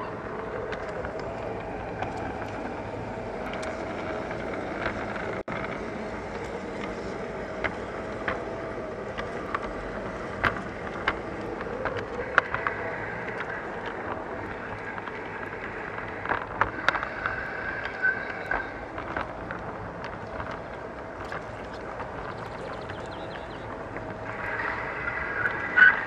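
LGB garden-railway model train running along the track, heard from on board: a steady motor hum with irregular sharp clicks from the wheels on the rails. A higher squeal comes in near the end.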